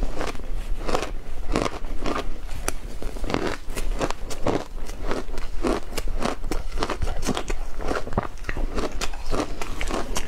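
Shaved ice being bitten and chewed close to a lapel microphone: a dense run of crisp, irregular crunches and crackles, several a second.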